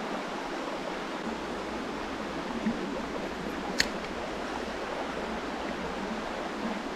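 Brook water running steadily, with one short sharp click about four seconds in.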